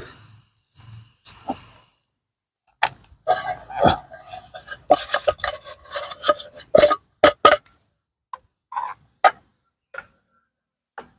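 Metal mess tins and a metal spoon clinking and knocking as they are handled, in a busy run of clatter through the middle, then a few scattered single clinks.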